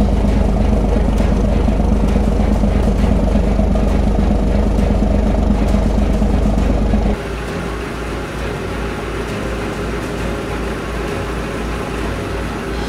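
Fishing boat's inboard marine diesel engine running steadily under load with the propeller turning. About seven seconds in it cuts abruptly to a quieter, slowly pulsing engine sound.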